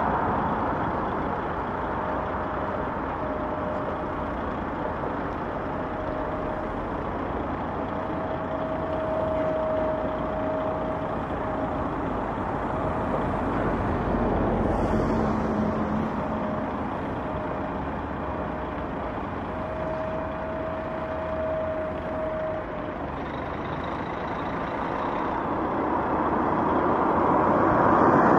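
Heavy-haul truck's diesel engine running steadily under load as it slowly pulls a long multi-axle trailer, with tyre and gravel rumble. A steady tone comes and goes over the first two-thirds. The sound grows louder near the end as the rig draws closer.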